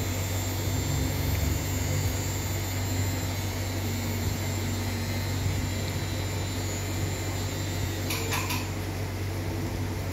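Tattoo machine buzzing steadily as it inks a tattoo into skin, with a few light clicks about eight seconds in.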